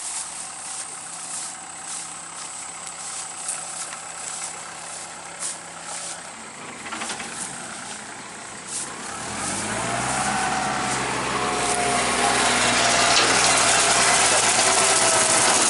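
An engine running. At first it is a low steady hum with scattered clicks. About nine seconds in, its pitch rises as it speeds up, and it grows louder and runs on steadily.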